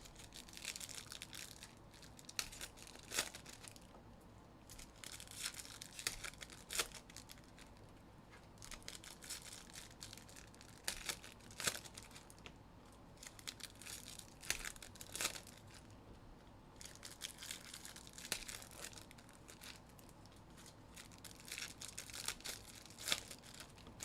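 Foil card-pack wrappers being torn open and crinkled, in repeated bursts of crackling with sharp snaps, with a short pause between each burst.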